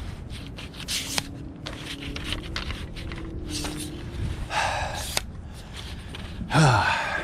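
A man breathing hard and grunting with effort, the loudest a falling grunt near the end, amid scattered clicks and knocks of gear being handled.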